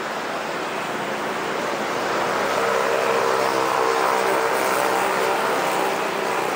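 Road traffic on a busy multi-lane avenue: a steady noise that swells from about two seconds in as an engine passes close with a steady hum, then eases near the end.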